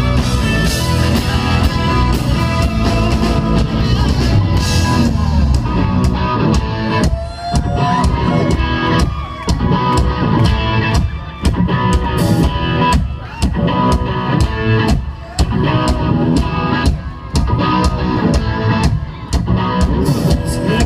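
Live country-rock band playing an instrumental passage, with electric guitars over a steady drum beat, loud through the stage sound system.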